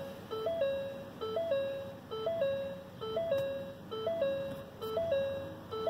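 Electronic warning chime from a 2018 Ford Focus ST, which has its ignition on and its engine off. The chime repeats steadily a little faster than once a second. Each cycle is a short low note, then a short high note, then a longer middle note.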